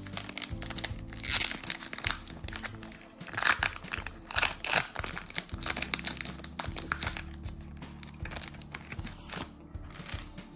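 Foil wrapper of a Pokémon card booster pack being torn open and crinkled, an irregular run of crackles, over background music with steady low notes.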